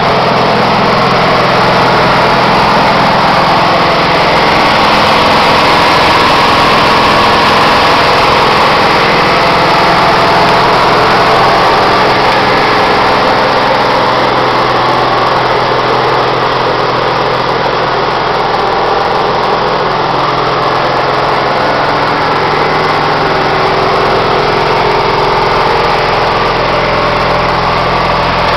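A 1970 Cushman Trackster's Onan four-stroke engine running steadily at idle.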